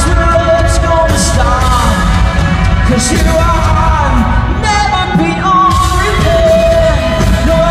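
Live pop-rock band performing loudly, a sung vocal line with long held notes over drums and bass.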